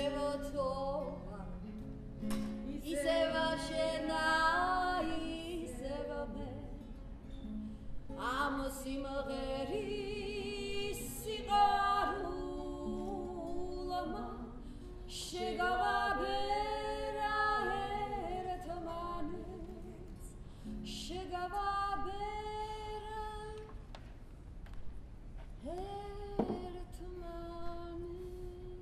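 A woman singing a slow song with held, wavering notes, accompanied by acoustic guitar.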